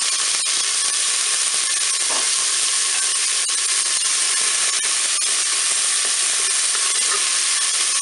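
Sliced onions frying in hot olive oil in a Cookeo multicooker's nonstick bowl on browning mode: a steady sizzling hiss with many small pops and crackles, while a wooden spoon stirs them.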